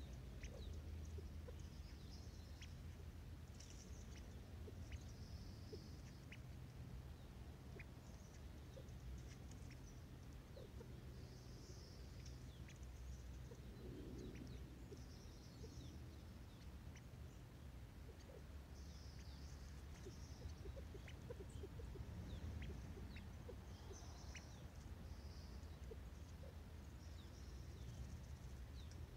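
California quail pecking at scattered birdseed close by, making irregular light ticks, with high bird chirps every second or two. A steady low rumble runs underneath.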